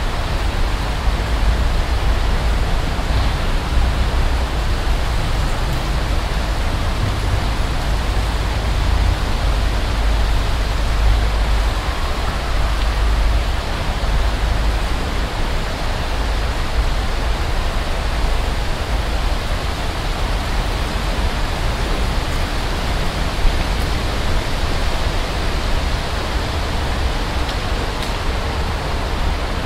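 Steady rushing outdoor noise with a heavy low rumble and no distinct events.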